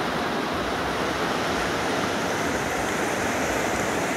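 Shallow, rocky river rushing over rapids: a steady, even rush of water.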